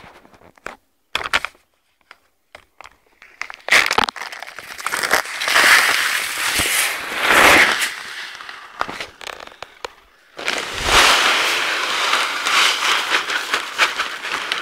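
Pheasant feed poured from a sack into a metal drum feeder: a few knocks and rustles of the sack, then a dense rush of feed running into the drum in two long pours, the second starting about ten seconds in.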